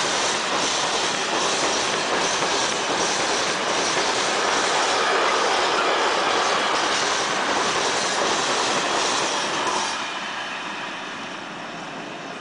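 Freight train of empty stake wagons rolling past, the wheels clattering over the rails. The last wagon goes by about ten seconds in and the noise drops away.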